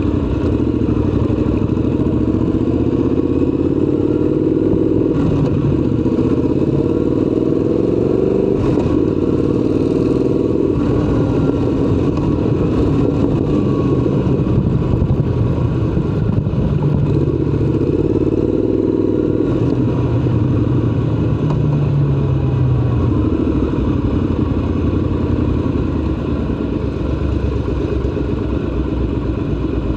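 Triumph Scrambler 1200 XC's 1200 cc parallel-twin engine running under way, heard from the rider's position. Its pitch rises and drops again several times as it pulls through the gears, with steadier cruising in between.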